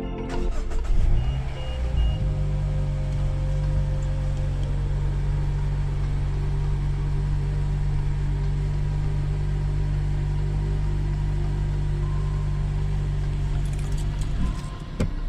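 2010 Mazda 6 engine starting and then idling steadily, its freshly changed oil circulating. It cuts off near the end.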